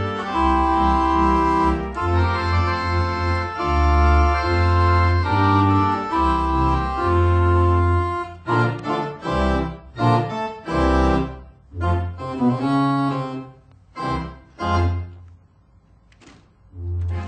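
Compton virtual theatre pipe organ played live as silent-film accompaniment: held chords over a repeated low pedal bass, changing about halfway to short, detached chords, with a brief pause near the end before the playing resumes.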